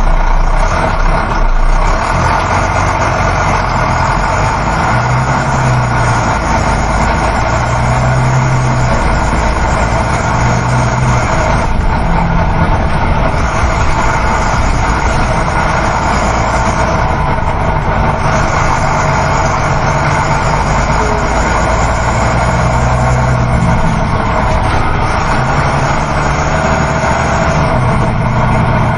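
Coach bus interior on the move: a steady engine hum under constant road and tyre noise. The low engine note shifts slightly now and then.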